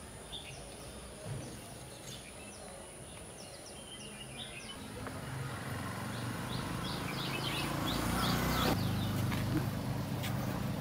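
Small birds chirping outdoors: many short, quick chirps, sparse at first and coming thick and fast in the second half, over a low rumble that grows louder.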